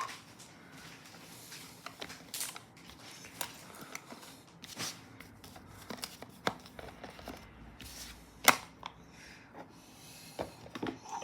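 Scattered light clicks and knocks of a speedcube and its packaging being handled and packed back into the box, with one sharper knock about eight and a half seconds in.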